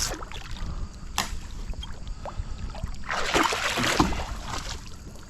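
Shallow river water splashing and sloshing, with a sharp knock about a second in and a louder stretch of splashing from about three seconds in, ending in a second knock.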